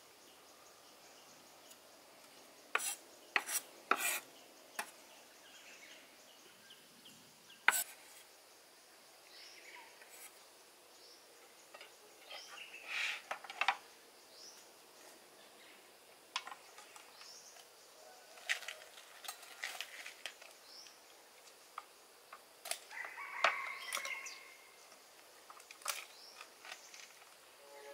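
Food-preparation handling sounds: a few sharp knife taps and knocks on a wooden cutting board in the first few seconds, then quieter scattered clatter and rustling as a woven bamboo tray is set down and a raw whole chicken is handled on it.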